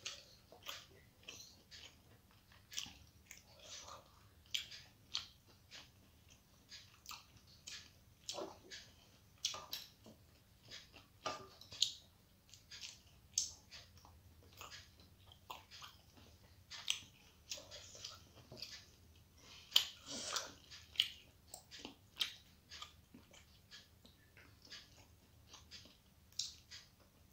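Close-up chewing of a mouthful of rice and rohu fish curry, with many short, irregular wet clicks.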